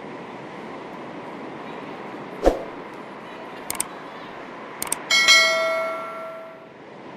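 Steady wash of gentle sea waves and breeze, broken by a dull thump and a few light clicks, then a single loud bell-like metallic ring about five seconds in that fades away over about a second and a half.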